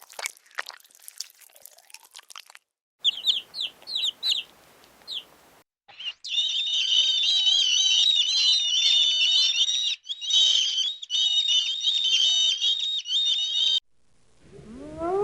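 Birds chirping: a short run of separate high chirps, then a dense, continuous chorus of high chirping from many birds at once. It opens with scattered crunching clicks, and near the end a rising howl starts.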